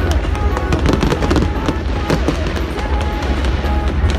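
Fireworks going off in quick succession: a dense run of crackling pops over a constant low rumble of bursts.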